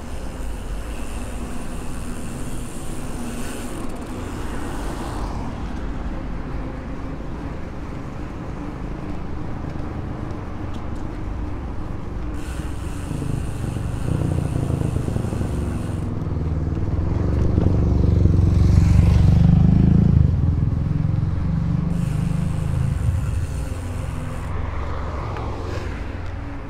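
Mountain bike rolling over paving and asphalt: steady tyre and wind rumble. Motor vehicle traffic goes by, growing louder to a peak about nineteen seconds in, then fading.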